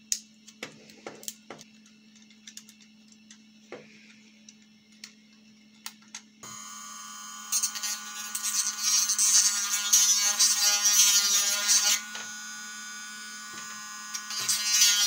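A few sharp clicks as the 3D-printed plastic part is handled and trimmed. Then, about six seconds in, a small handheld rotary tool starts with a steady whine and grinds loudly and roughly against the plastic for several seconds, deburring it. It eases back to its free-running whine, then bites into the plastic again near the end.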